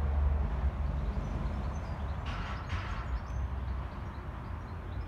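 Steady low background rumble, with a brief soft hiss a little over two seconds in and a few faint high chirps.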